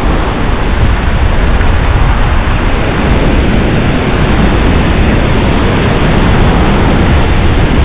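Loud wind buffeting the microphone over the steady wash of ocean surf breaking on a beach.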